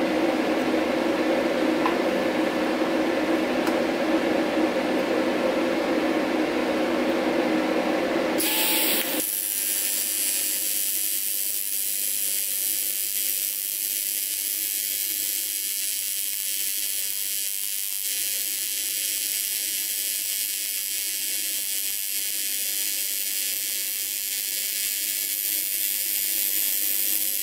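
TIG welding arc on aluminium: a steady, even hiss that starts abruptly about eight seconds in and runs on unbroken. Before it there is a steady hum with a few held tones.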